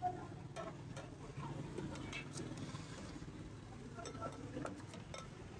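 A steel ladle scooping in a large steel pan of mutton curry and tapping against a steel container, a few light clicks over faint background chatter.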